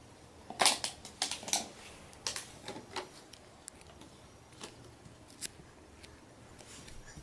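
A run of light, irregular clicks and taps, bunched closely about half a second to two seconds in, then sparser single ticks.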